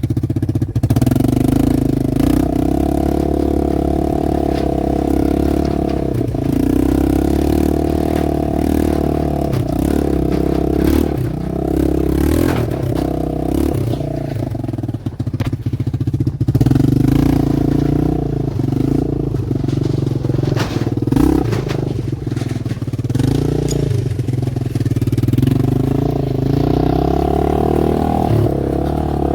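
An engine running steadily, with scattered clicks and clatter.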